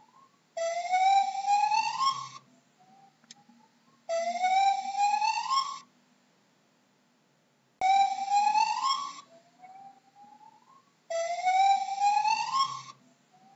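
Gibbon calling: four long whoops, each rising in pitch over nearly two seconds, about one every three and a half seconds, with fainter, shorter rising notes between them.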